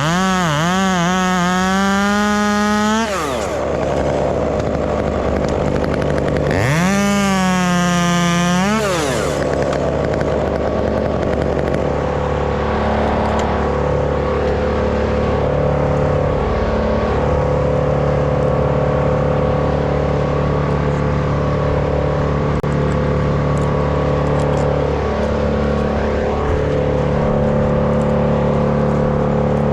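Stihl MS 201 top-handle chainsaw at high revs, its pitch swinging up and down for a few seconds. It revs up again briefly a few seconds later, then settles into a steady lower engine drone.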